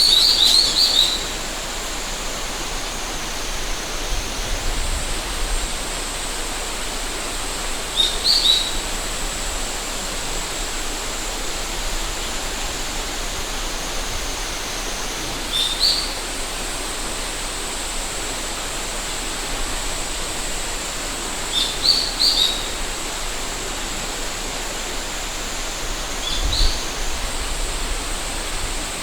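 A river runs steadily, with a cicada's continuous high-pitched buzz over it and a small bird giving short chirps about five times. There are brief low rumbles of wind on the microphone.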